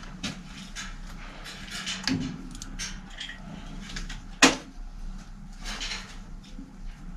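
Light clicks and knocks of hands and a tool working on a child's bicycle rear wheel and hub, with one sharp clack about four and a half seconds in.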